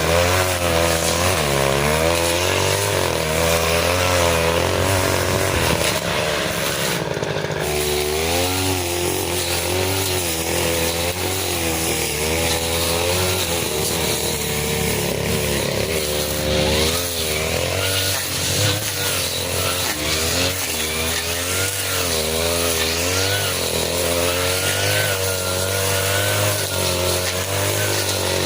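Two-stroke 40cc brush cutter engine running hard, its pitch rising and falling over and over as the blade bogs and frees in very thick grass. It eases off briefly about seven seconds in, then picks up again.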